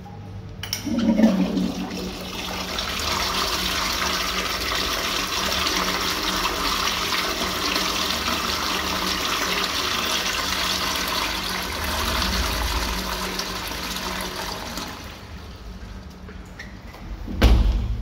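INA washout toilet flushing from its push button: a click and a surge about a second in, then rushing water for about fourteen seconds that fades away. A short loud thump near the end.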